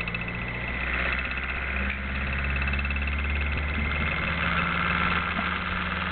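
Home-built Orbo-replica motor running: a rotor with neodymium magnets pulsed by two toroidal coils, giving a steady machine hum that grows louder over the first couple of seconds. The LEDs built into the rotor throw it off balance and make it noisy.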